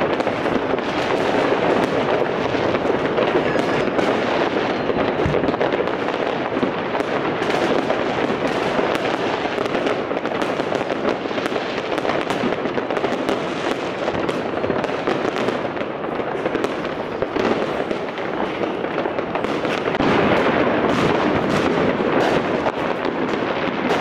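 Fireworks and firecrackers going off all around without let-up: a steady din of many overlapping bangs and crackles.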